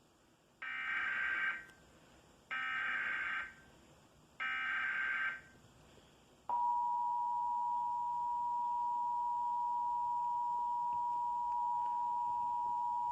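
Emergency Alert System broadcast opening: three short bursts of SAME header data, each a raspy digital screech about a second long, then about halfway through the steady two-tone EAS attention signal begins and holds.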